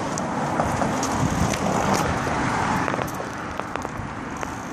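A car passing on the street, its road noise swelling and easing off about one to two seconds in, with scattered light clicks and rattles from bicycles being walked across the road.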